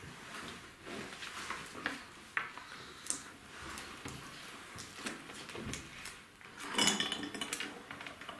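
Light clicks and knocks of small plastic toy pieces being handled and set down on a wooden table, with a louder clatter about seven seconds in.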